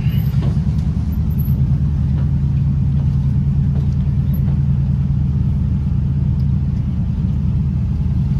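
An engine running steadily at constant speed: a loud, low, even drone that holds the same pitch throughout.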